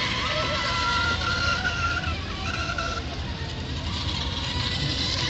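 Radio-controlled monohull racing boats running flat out. A high-pitched motor whine climbs about a second in and fades near the middle, over a steady rush of spray and wind.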